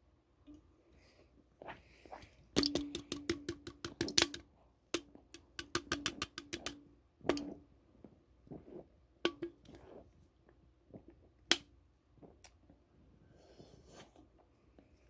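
Coke being chugged: quick, regular glugging clicks, about eight a second, over a steady low tone. They come in two runs of about two seconds each, then thin out to scattered single gulps.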